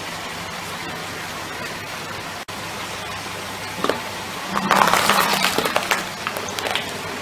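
A car tyre rolling onto a whole cucumber and crushing it: a short crack near four seconds in, then about two seconds of dense crunching and crackling as it splits and flattens. A steady low hiss runs under it.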